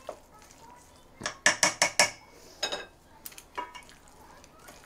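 A fork and chopsticks clinking against a stainless steel mixing bowl and plate while a salad is stirred. There is a quick run of about five sharp clicks a little over a second in, then a few scattered clicks.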